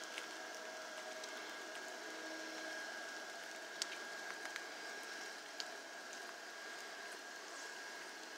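Light rain: a steady hiss with a few sharp drip ticks about four and five and a half seconds in, over a faint steady high whine.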